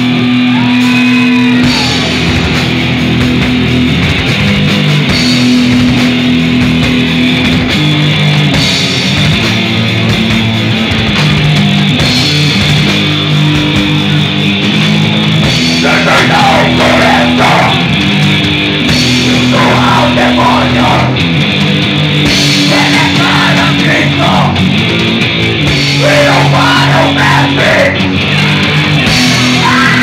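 Black metal band playing live: distorted electric guitar and bass riffing over drums with a constant cymbal wash. Harsh vocals come in, in short bursts, from about halfway through.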